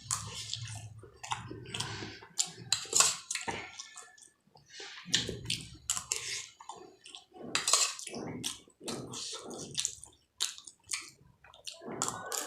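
A person chewing food close to the microphone: a run of short, irregular eating sounds with brief pauses between mouthfuls.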